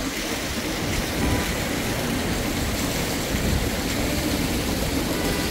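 Steady rush of water pouring and flowing through concrete fish-farm raceways, with a low, uneven rumble underneath.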